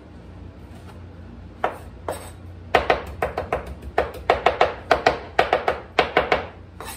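Kitchen knife chopping fresh herbs on a plastic cutting board: two single strokes about a second and a half in, then a quick run of sharp, ringing knocks, about four or five a second, that stops shortly before the end.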